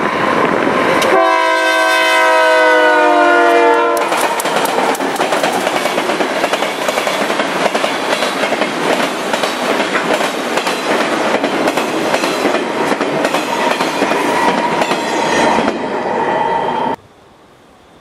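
Union Pacific freight locomotives passing close by, sounding their multi-chime air horn in one blast of about three seconds whose pitch sags slightly as it passes. Loaded flatcars then roll by with steady wheel noise and rapid clickety-clack over the rail joints, which cuts off suddenly near the end, leaving a faint windy hush.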